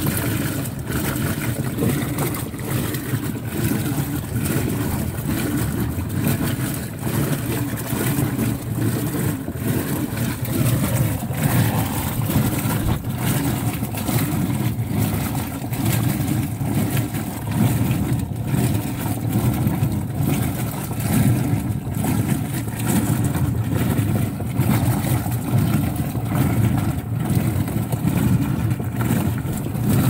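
Top-load washing machine agitating a load of jeans in water: a steady low churning and sloshing of water and wet denim in the tub.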